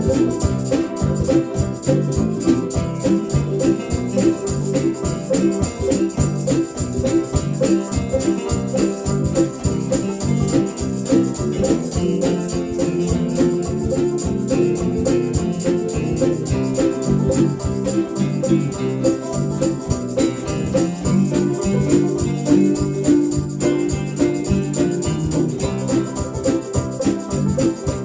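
Instrumental break in a country-style band song: guitar over a steady beat with jingling percussion, and no singing.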